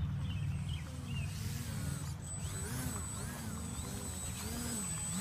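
Small electric RC aerobatic model plane's motor and propeller whining, the pitch swooping up and down again and again as the throttle is worked to hold it nose-up in a hover, over a steady low rumble.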